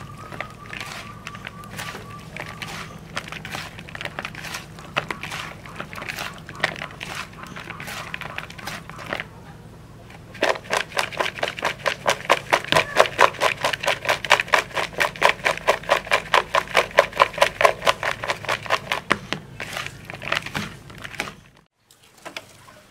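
Bare hands squishing and mixing raw frogs with their seasoning in a bowl: irregular wet slaps and crackles. From about ten seconds in, the mixing turns into a fast, even rhythm of strokes, several a second, that stops a few seconds before the end.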